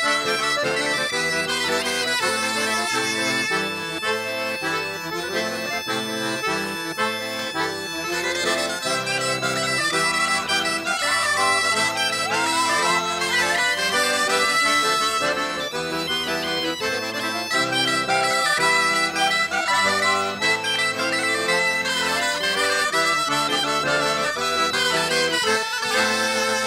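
Live traditional Breton dance music: a reedy melody instrument carries a quick run of notes over a steady accompaniment, with no pause.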